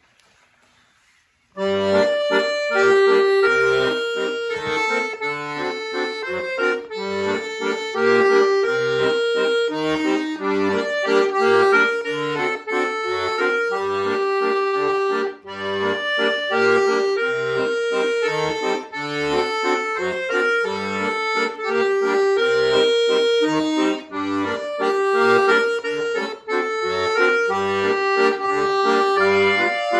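Chromatic button accordion playing a solo piece, beginning about a second and a half in after a brief silence: a sustained melody over repeated low bass notes.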